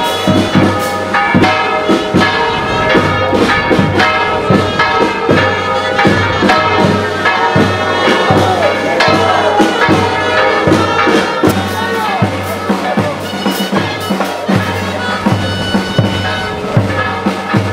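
Traditional folk dance music played live: a reedy wind instrument carries the melody over a steady drum beat.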